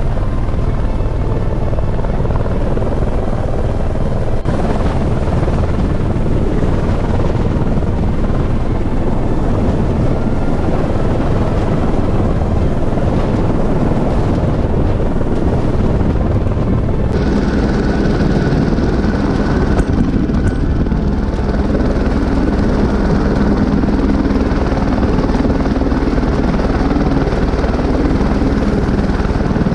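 Helicopter running close by: a loud, steady rotor and turbine noise. About two-thirds of the way through it switches abruptly to a different sound with a steadier high whine over a low hum.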